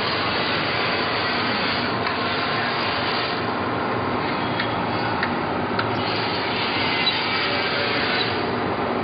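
Straight knife blade grinder running: its grinding head rasps steadily along the blade, with a few light clicks about five seconds in.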